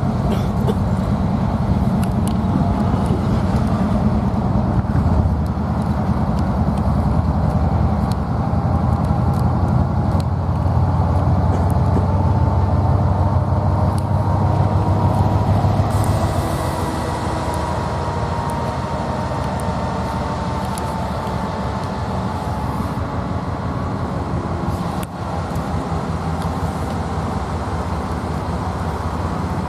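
Diesel freight train running past: a steady low rumble that eases about sixteen seconds in, with a faint steady whine above it.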